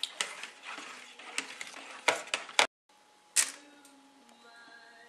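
A whisk clattering against a plastic mixing bowl in quick, uneven taps. The taps stop abruptly under three seconds in, followed by one louder knock and then quieter background.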